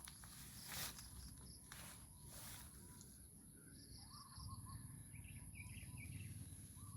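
Faint rural ambience: a steady high-pitched insect drone, with a few short rustles in the first few seconds and bursts of small bird chirps about halfway through.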